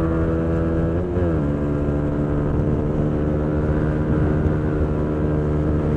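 Honda CBR125R's single-cylinder engine running hard at road speed. About a second in, its pitch drops and then holds steady.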